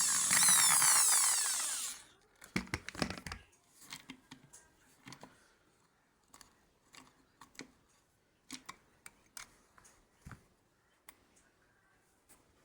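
A woodworking power tool runs loudly for about two seconds and then stops, followed by a scattering of light knocks and clicks from the work being handled.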